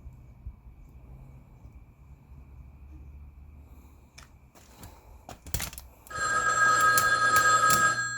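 Low background hum with a few faint clicks, then about six seconds in a loud electronic ringing tone on two close pitches with a fast pulsing rattle, like a telephone bell.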